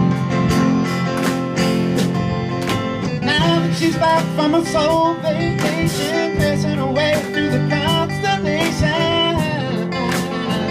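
Live band playing a pop-rock song on electric guitar, keyboard and drum kit, with a man singing lead from about three seconds in until near the end.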